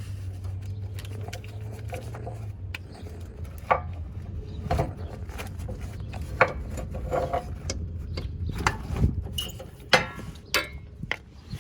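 Scattered sharp metal knocks and scrapes, about eight in all, as the rubber-and-steel transaxle mount of a C5 Corvette is worked free and handled, with a low hum during the first couple of seconds.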